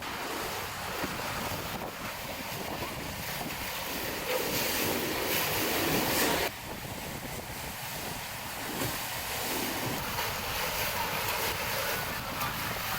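Wind buffeting the microphone over the rush of water stirred up by boats on a river. The rush grows louder about four seconds in, then drops off suddenly about halfway through.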